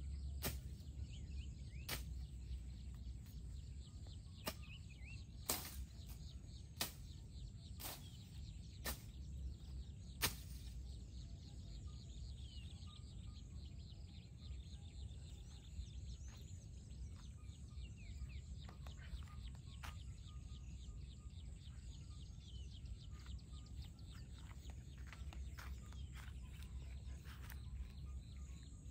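Quiet outdoor ambience: a steady low rumble with faint bird chirps. A run of sharp clicks comes about once a second through the first ten seconds.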